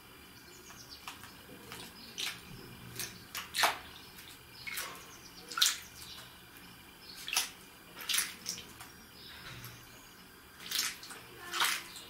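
Eurasian blackbird bathing in a shallow plastic tub of water: a dozen or so short, irregular splashes, starting about two seconds in.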